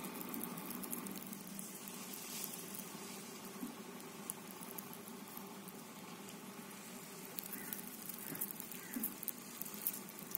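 Steady background noise with a faint hum, and scattered faint clicks and crackles through the last few seconds.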